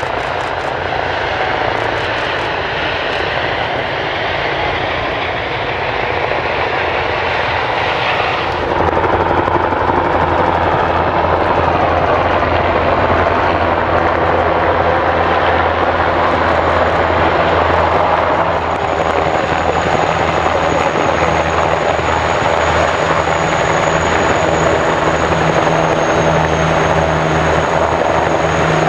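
Several military helicopters, among them a Eurocopter Tiger attack helicopter and a twin-rotor CH-47 Chinook, flying low past. The rotor and turbine noise is steady and gets louder about eight seconds in as the helicopters come closer, and a thin high turbine whine joins in the second half.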